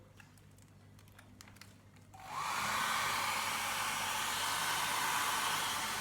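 Hand-held hairdryer switched on about two seconds in, with a brief rising pitch as the motor spins up, then running steadily with a loud rush of air. It is blowing into a soft bonnet dryer's hose taped to its nozzle.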